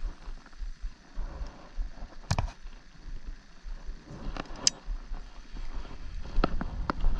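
Handling noise from a pole-mounted camera being gripped and moved: a few sharp knocks and rubs, the loudest about two seconds in, over a low wind rumble on the microphone.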